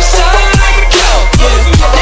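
Dubstep track: a heavy, constant sub-bass under drum hits and gliding synth lines, with a falling synth sweep about a second in.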